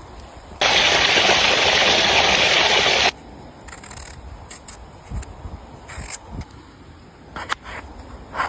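A loud, steady hiss for about two and a half seconds, starting and stopping abruptly, followed by a few light clicks and knocks.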